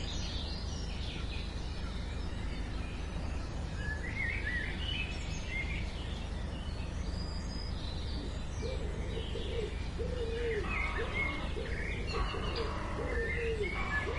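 Wild birds chirping and calling over a steady low background rush of outdoor noise. From a little past halfway, a lower-pitched call repeats several times in a row, each note rising and falling.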